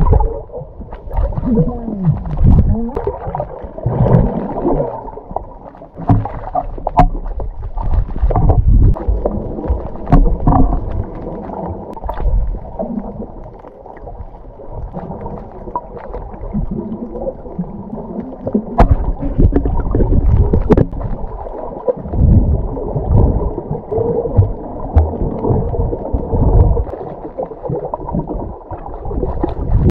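Water heard through a camera held underwater: muffled sloshing and gurgling that swells and fades in surges as the swimmer moves, with a few sharp clicks.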